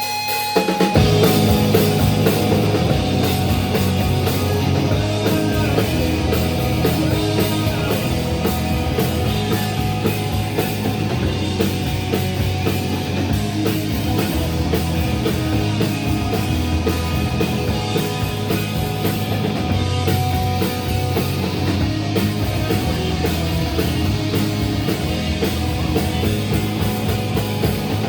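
Live rock band playing loud, with electric guitar and drum kit. The full band comes crashing in about a second in and keeps driving steadily, with no singing.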